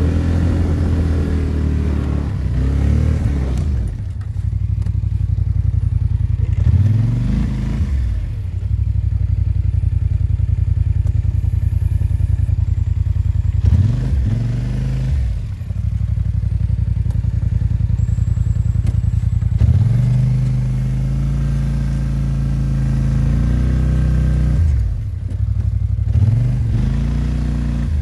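An 850 cc ATV engine working hard in deep wet snow, its revs rising and falling about five times as it pushes and backs off.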